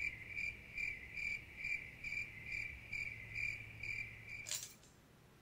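Cricket chirping sound effect: evenly spaced chirps a little over two a second, the stock 'crickets' cue for an awkward silence. It stops about four and a half seconds in with a short swish.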